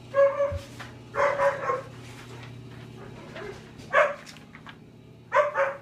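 A dog barking several times in short barks, some in quick pairs.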